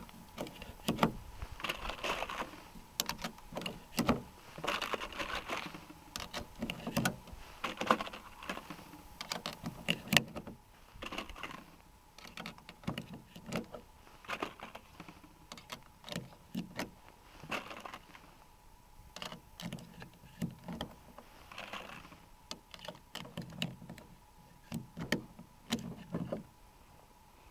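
UpLula plastic magazine loader pressing 9mm cartridges one at a time into a Glock double-stack magazine: a run of short plastic clicks and clacks every second or two as the loader is squeezed and each round snaps down into the magazine, more spaced out in the second half.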